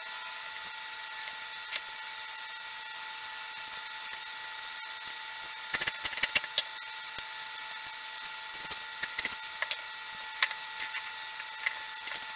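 Scattered clicks and knocks of glued wooden staves and a clamp being handled on a workbench, over a steady faint hum. The knocks come in clusters about six seconds in, again around nine seconds, and just at the end.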